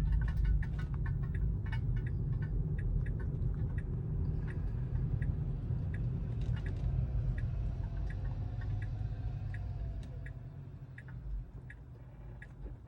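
Tesla Model 3's turn-signal indicator ticking steadily inside the cabin, over a steady low road and tyre rumble that fades near the end.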